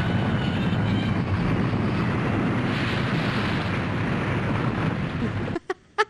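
Steady rushing noise, like wind or surf, that cuts off suddenly about five and a half seconds in.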